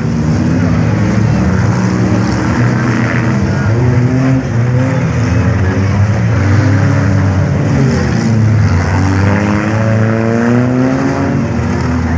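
Several demolition derby cars' engines revving up and down at once, their pitches rising and falling over one another in a steady din.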